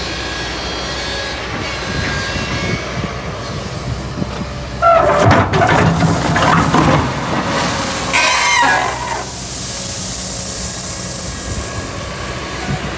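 Excavator engine running steadily. About five seconds in, a loud pitched cry slides in pitch for about two seconds, and a shorter, higher one follows near nine seconds.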